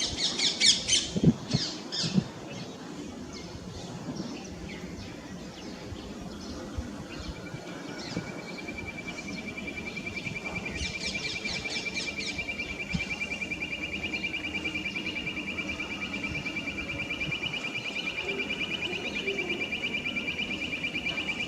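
Bird calling, said to be a ranti lahori: a burst of harsh squawking notes in the first second, then, from about seven seconds in, a long, steady, high trill that runs on, broken by another harsh burst around eleven seconds.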